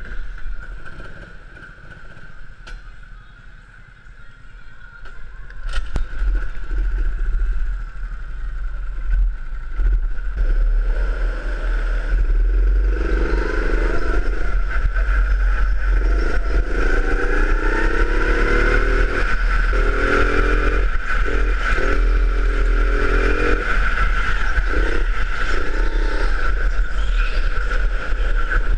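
Rental go-kart engine heard from onboard, running gently as it pulls away at first, then from about twelve seconds in revving up and falling back again and again through the corners. A steady high whine and a low rumble run under it.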